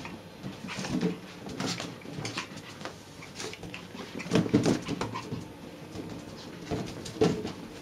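A small dog playing with a rubber balloon: irregular bumps and scuffles of the balloon against its nose and the carpet, with scrabbling paws. The loudest bumps come about four and a half seconds in and again just before the end.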